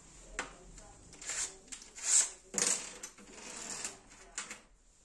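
Workbench handling noises: scattered small clicks and taps with a few short scraping, hissing sounds, over a faint mains hum.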